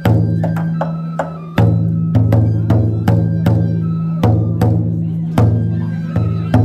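Large barrel taiko drum on a festival yagura float, beaten with wooden sticks in a steady rhythm of about two deep strokes a second, with lighter, sharp strokes between the main beats.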